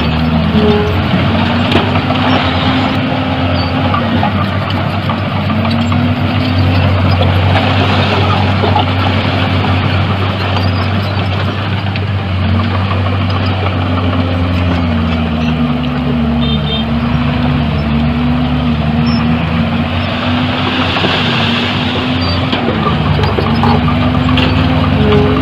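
Heavy diesel earthmoving machinery running steadily, its engine pitch rising and falling again and again as it works under changing load.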